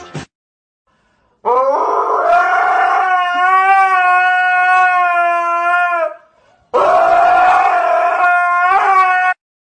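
Dog howling twice: a long, steady howl of about four and a half seconds, then after a short break a second howl of about two and a half seconds.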